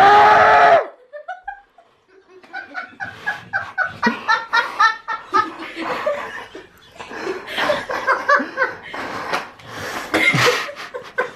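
A loud, high-pitched scream that breaks off about a second in, followed after a short pause by several seconds of laughter, with giggles and chuckles.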